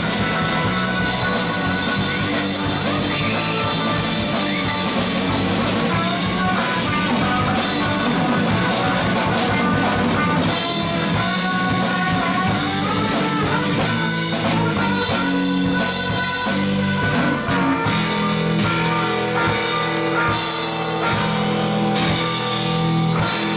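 Rock band playing live: electric guitars, bass guitar and drum kit, steady and loud.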